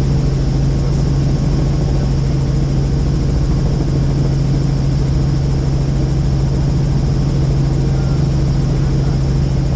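Helicopter in flight heard from inside the cabin: a loud, steady drone with a strong low hum that holds unchanged throughout.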